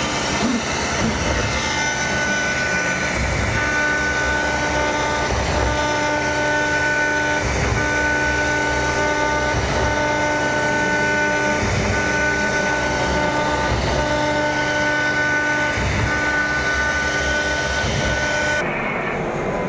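CNC router spindle carving wood: a steady high-speed whine of several tones over the hiss of the bit cutting, breaking off and returning about every two seconds. Near the end the upper hiss drops away abruptly.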